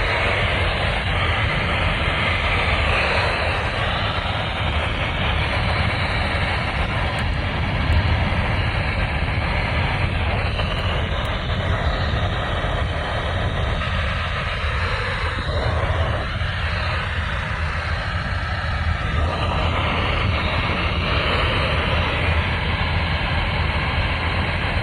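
Heavy radio static: a steady hiss of noise from a radio receiver with poor, staticky reception.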